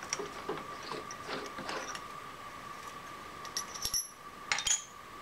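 Small steel tools and machine tooling clinking and rattling as they are handled and set down on metal, with a cluster of sharp, ringing metallic clinks near the end, over a steady high-pitched hum.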